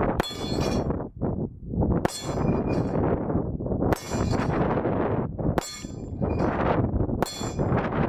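Five pistol shots from a Sig Sauer P220 in .45 ACP, spaced about two seconds apart, each hit ringing a steel target. Heavy wind noise on the microphone runs underneath.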